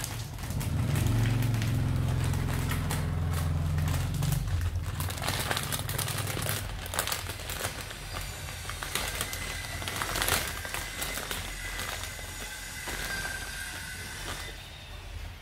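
Thin clear plastic bag crinkling and rustling in a dense run of crackles as kittens crawl into it and paw at it, with a low rumble through the first few seconds.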